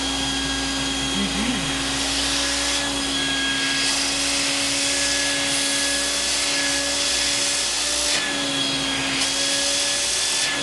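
Household vacuum cleaner running with its nozzle held to a man's ear, its motor whining at a constant pitch. The rush of air through the nozzle grows and falls away several times.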